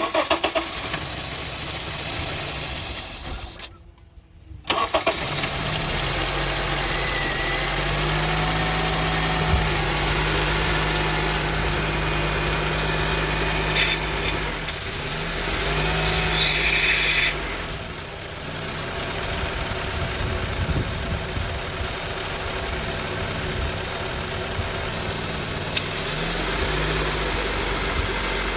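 2002 Honda CR-V's 2.4-litre four-cylinder engine being started, with a brief break about four seconds in before it catches, then running steadily at a high idle. With the sensor unplugged it runs smoothly instead of hunting up and down.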